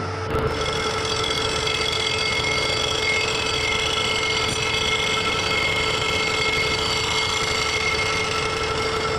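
Bridgeport milling machine running, its large disc face cutter taking a two-thousandths-of-an-inch skim cut across a Honda GX610 cylinder head to give it a new gasket sealing surface. A steady machine whine with several steady tones, stepping up in level just after the start.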